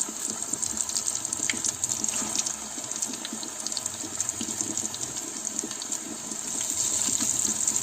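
Flour-coated chicken pieces deep-frying in hot oil in a wok: a steady sizzle with many small crackles and pops.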